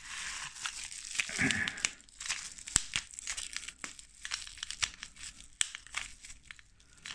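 Crinkling and tearing of wrapping being pulled off a coin capsule by hand, with a couple of sharp clicks along the way.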